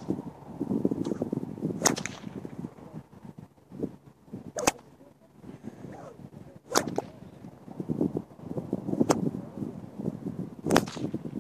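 A long braided whip being swung and cracked: five sharp cracks, about two to three seconds apart.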